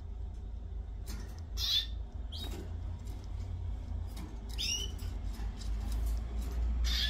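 Canaries chirping: a few short, high chirps spaced a second or two apart, over a steady low hum.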